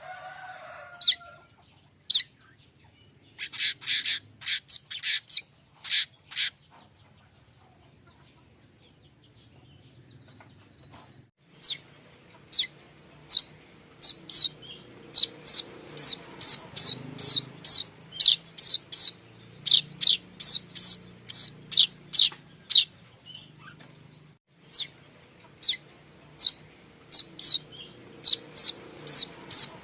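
Streaked weaver (manyar kembang) calling in sharp, high, short chirps: a few single notes, a brief cluster about four seconds in, then a steady run of about two chirps a second from about eleven seconds on.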